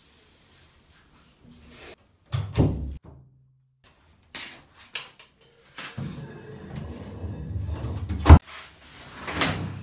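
A door being handled: a run of knocks and bumps, a stretch of rustling, and a sharp latch-like click about eight seconds in.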